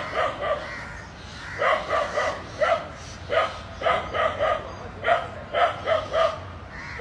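A dog barking repeatedly at snakes, in quick runs of two or three barks about a second apart.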